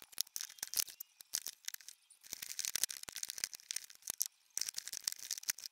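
Eyeshadow palettes handled and slid into a drawer: many small, irregular clicks and taps of palette cases knocking together, with light scraping as they slide against each other.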